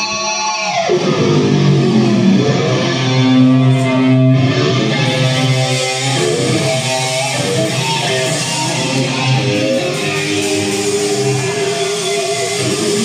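Heavy metal band playing live: distorted electric guitar, bass and drums with a singer's voice, loud and dense. A falling pitch glide sweeps down in the first second, and a held note wavers near the end.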